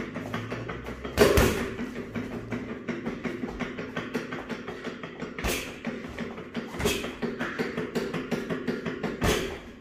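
Boxing gloves punching a freestanding spring-mounted reflex bag in quick combinations: a steady run of light taps several a second, with four harder, louder hits spread through.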